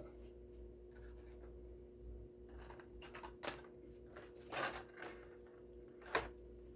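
Faint handling noises, scattered small clicks and rubbing, likely from picking up die-cast toy cars and their packaging, over a steady faint hum.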